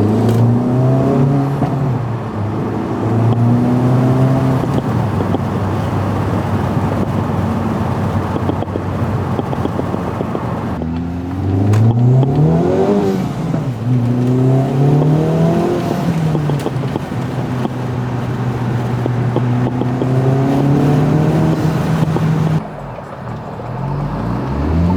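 Acura Integra Type S turbocharged four-cylinder engine accelerating hard through the gears. The engine note climbs steadily, falls back at a gear change about eleven seconds in, revs up and down briefly, then dips again near the end as the throttle lifts.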